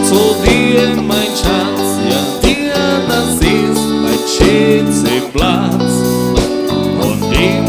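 Dance band music: a singer with a wavering, vibrato voice over guitar and steady bass, with a low drum beat about once a second.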